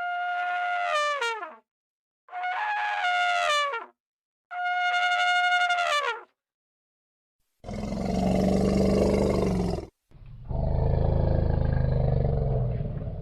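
Elephant trumpeting three times, each high, brassy call about a second and a half long and dropping in pitch at the end, followed by two longer, low, rough elephant roars.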